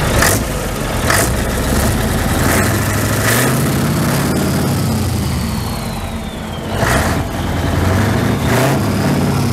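Scania 143 500's V8 diesel being revved, its note rising and falling twice, with a turbocharger whistle falling away after the first rev. It has the characteristic V8 clatter.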